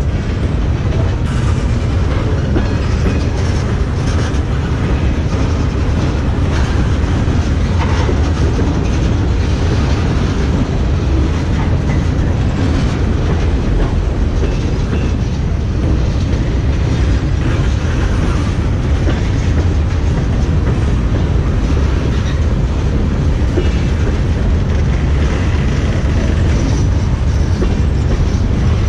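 Freight train tank cars and a gondola rolling past on the nearest track: a loud, steady rumble of steel wheels on rail, with the clickety-clack of wheels over rail joints.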